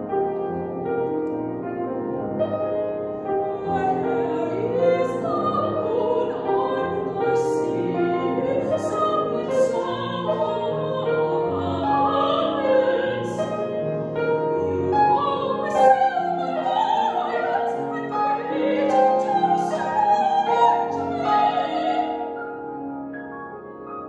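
Operatic soprano voice singing a contemporary classical art song with grand piano accompaniment. The voice rises and falls in long held notes over sustained piano chords, and drops away near the end, leaving the piano softer.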